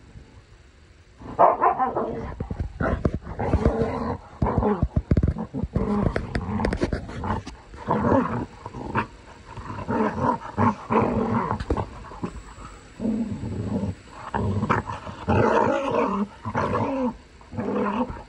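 A dog growling and snarling in play while wrestling, in repeated bouts starting about a second in, with scuffling knocks mixed in.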